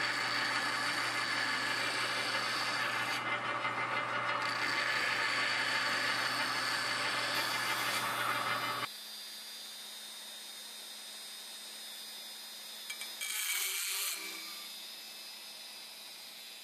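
Bench-top power sander running with a steel reciprocating-saw blade held against its spinning abrasive disc: a steady motor hum under a grinding hiss of metal on abrasive. It stops abruptly about nine seconds in, leaving quiet room noise with a brief scrape a few seconds later.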